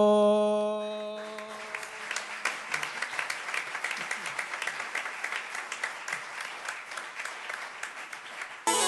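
Audience applauding. The singer's last held note and a low drone under it die away in the first second or so. Near the end, launeddas (Sardinian triple reed pipes) start up abruptly with a steady drone.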